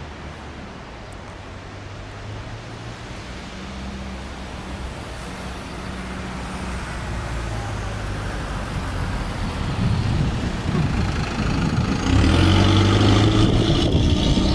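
Diesel locomotives of a CN freight train running steadily under load as they start up a grade, growing steadily louder as they approach and much louder near the end, with wind noise throughout.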